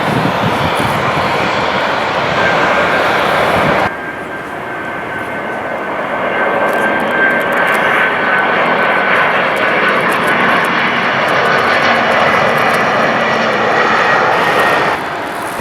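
Airliner engines running loudly, with a thin whine that rises slightly over several seconds; the sound changes abruptly about four seconds in and cuts off near the end.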